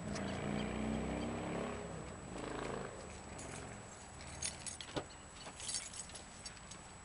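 Mazda 3's four-cylinder engine running through a straight pipe with the muffler cut off. Its speed rises and falls twice in the first three seconds, then it settles to a steady idle, with a few light clicks in the second half.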